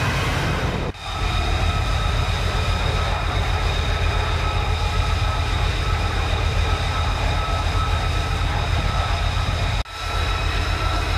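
F-35B Lightning II's F135 turbofan jet engine running on a ship's flight deck: a steady heavy rumble with a high turbine whine. The sound drops out for an instant twice, about a second in and near the end.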